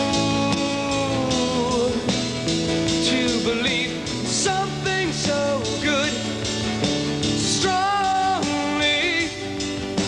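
Rock song: a man sings a slow melody over a band.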